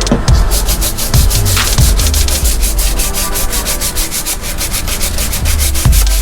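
Sanding on the inside of a bass boat: a quick, rhythmic scrubbing, heard over background music with heavy bass.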